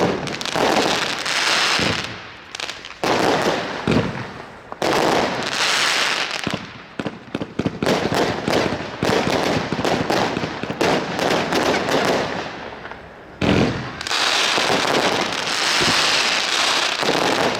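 Consumer firework battery firing: a rapid, dense run of shots and bursts with crackling effects. It eases off briefly a few times and comes back strong about 14 seconds in.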